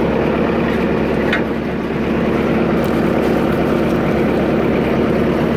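Bobcat S300 skid-steer loader's diesel engine running steadily at idle.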